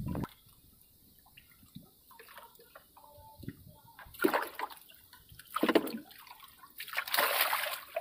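Water splashing and sloshing in short bursts, about four seconds in, again near six seconds, and a longer one near the end, as a trot line and its catch are hauled out of the river into a wooden boat.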